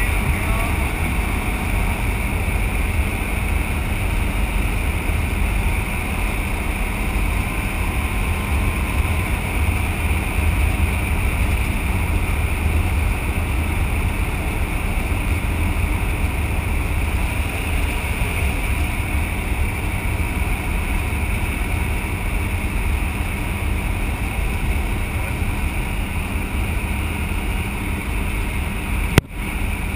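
Jump plane's engine running and wind rushing past the open door, a steady noise heard from inside the cabin. There is a brief dropout near the end.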